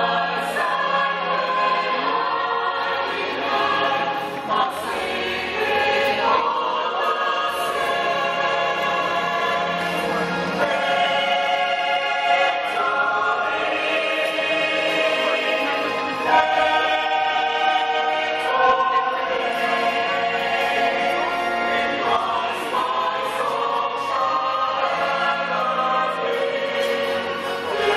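Church choir singing a gospel song in full harmony, the many voices holding chords that change every few seconds, heard from high in the stands of a large arena.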